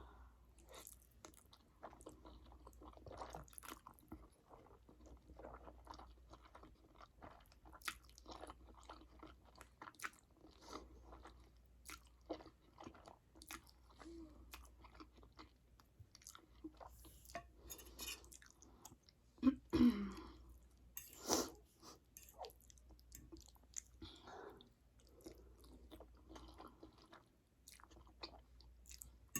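Close-up chewing of Samyang black bean instant noodles: soft wet mouth clicks and smacks, with a louder cluster of sounds a little past the middle.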